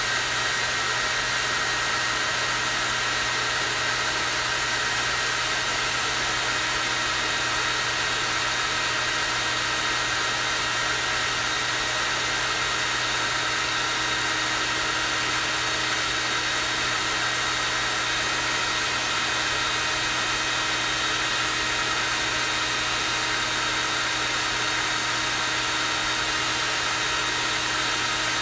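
Hair dryer running steadily on its high setting: an unbroken rush of air with a constant high-pitched motor whine.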